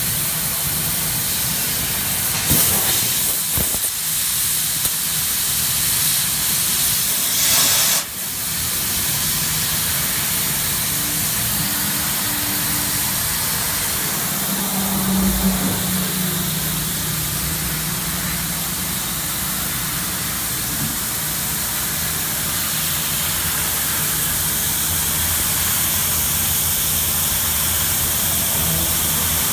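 2000 Platino 1530 2200-watt CO2 CNC laser cutter cutting sheet steel: a steady hiss from the gas jet at the cutting head's nozzle, over a low machine hum. The hiss swells briefly about 3 and 8 seconds in, and a short deeper hum rises about halfway through.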